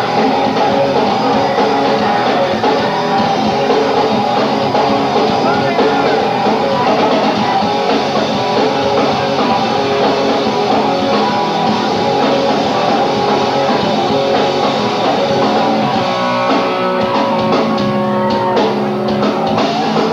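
Rock band playing live at full volume: distorted electric guitars, bass and drum kit, heard through a home-video tape recording with the top end cut off.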